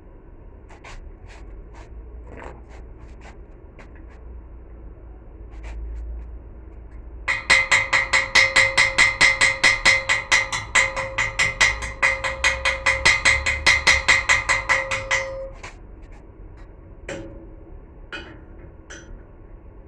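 Hammer striking steel in a rapid run of blows, about five a second, each ringing with a metallic tone, for some eight seconds. Scattered lighter knocks and clanks come before and after it.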